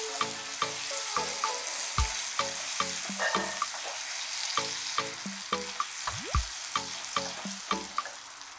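Butter sizzling and bubbling in hot caramelized sugar in a nonstick pan, stirred with a silicone spatula that scrapes the pan in quick repeated strokes. The sizzle eases a little toward the end. This is the butter being worked into the caramel for butterscotch.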